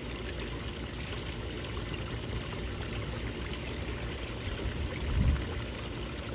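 Steady sound of running, pouring water, with a brief low bump about five seconds in.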